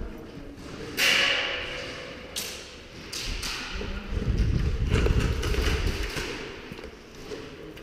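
Footsteps and gear thudding as an airsoft player moves between cover, with several sharp cracks that echo in a large open shed, the loudest about a second in.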